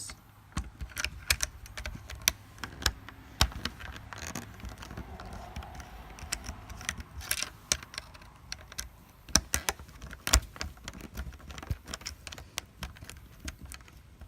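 Irregular small clicks, taps and rattles of a screwdriver and plastic console trim being handled while two small screws are backed out of the push start button mount, with a few louder knocks of parts being set down.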